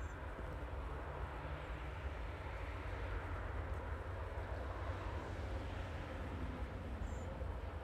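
Distant diesel-hauled container train approaching: a steady low rumble of the locomotive engine.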